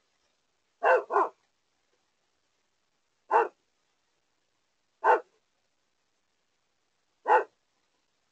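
Small dog barking: a quick double bark about a second in, then single barks about every two seconds. The barks are deep enough to sound like a much bigger dog, such as a pit bull.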